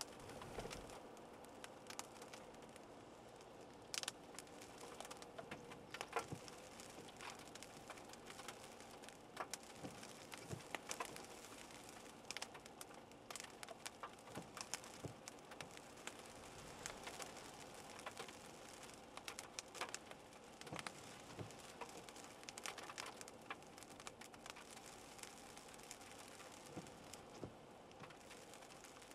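Scattered raindrops tapping irregularly on a hard surface, over a faint steady hum.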